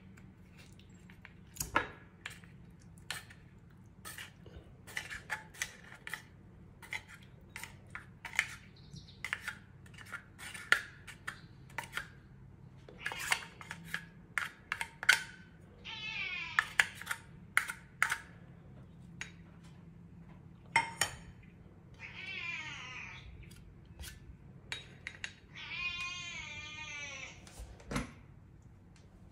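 A spoon clicks and scrapes against a metal can and a small bowl while wet cat food is scooped out, in many short taps. A cat meows three times in the second half, the last meow the longest.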